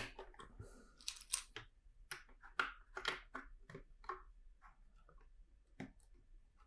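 Plastic LEGO bricks being handled: an irregular run of short, light clicks and rattles as pieces are picked up and pressed together, thinning out after about four seconds.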